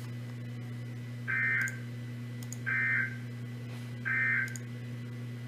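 Emergency Alert System end-of-message code on NOAA Weather Radio: three short, raspy digital data bursts, each under half a second and about a second and a half apart, marking the end of the tornado watch alert. A steady low hum runs underneath.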